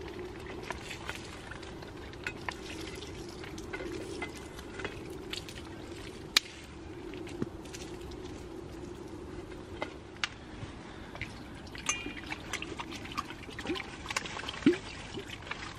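Food sizzling in a pan, a steady hiss with scattered pops and crackles.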